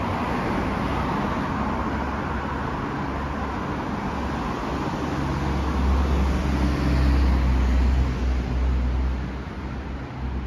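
City street traffic: steady road noise, with one vehicle's low engine rumble growing louder from about halfway through and fading again near the end as it passes.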